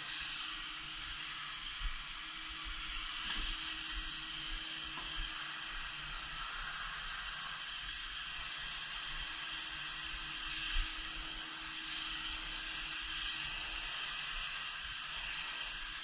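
HVLP spray gun, fed by a hose from its turbine, spraying Plasti Dip: a steady air hiss with a steady low hum underneath.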